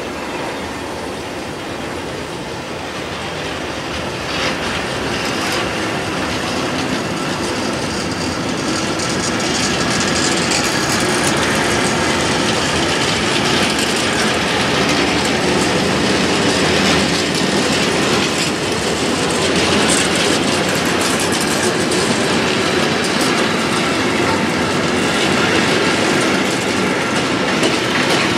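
Freight train of open-top coal gondola wagons rolling past close by, wheels running over the rails, getting steadily louder as the train picks up speed after a stop.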